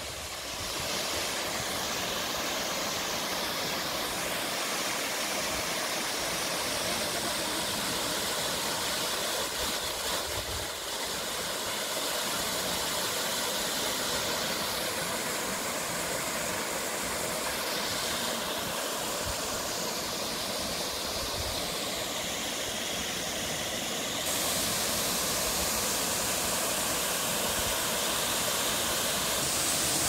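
Waterfall: a steady, even rush of falling water, a little brighter in the upper hiss for the last few seconds.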